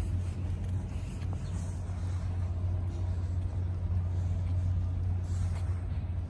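A steady low rumble that does not change, with a faint hiss above it.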